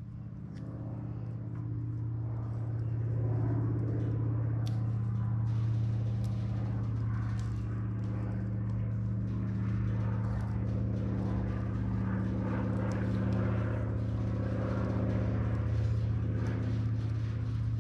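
A steady engine hum that builds over the first few seconds and then holds, with the crackle and snaps of electrical tape being stretched off the roll and wrapped tight.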